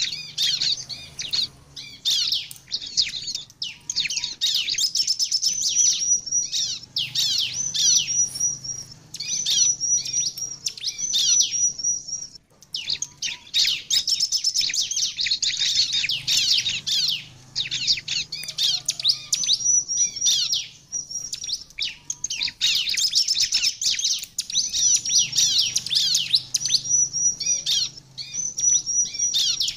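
Bar-winged prinia (ciblek) singing vigorously: rapid high-pitched chirps and repeated trilled phrases, with a few short breaks.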